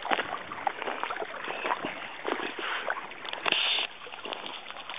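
Water splashing and sloshing as a dog wades through a shallow stream, with a brief louder splash about three and a half seconds in.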